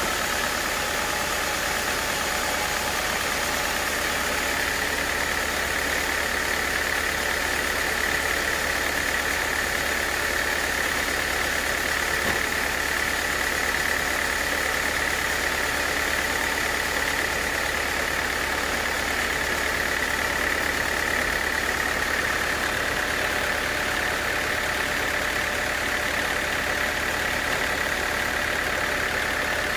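Band sawmill running steadily while sawing an acacia log: a continuous high whine from the blade over the low hum of the mill's engine.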